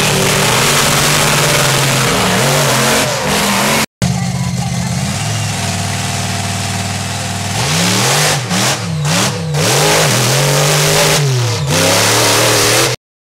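Monster truck supercharged V8 engines running at high revs. Midway the pitch swings up and down in several quick revs as the driver works the throttle. The sound cuts off abruptly near the end.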